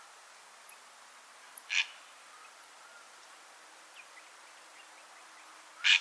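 Purple heron giving two short harsh calls about four seconds apart, over a faint steady hiss with a few faint high chirps.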